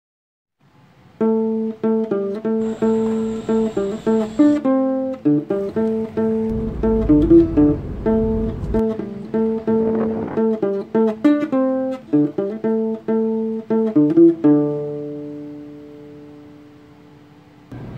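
Background music of plucked string notes in a repeating pattern, starting about a second in and ending on a held chord that fades out.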